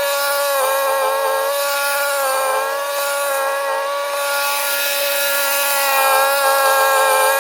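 Ariens 624E snowblower running at high throttle, a steady high-pitched engine whine that sags slightly in pitch a few times, as when it takes a load of snow.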